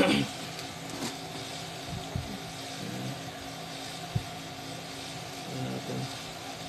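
Handling noise from the aluminium heatsink and circuit board of a power inverter being tilted on a workbench: a sharp knock right at the start, then a few light clicks, over a steady mechanical hum.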